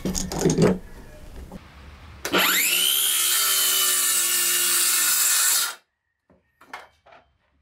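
Stanley FatMax cordless circular saw starting up with a quickly rising whine, then running steadily as it cuts through the wood on a crosscut jig, for about three and a half seconds before cutting off suddenly.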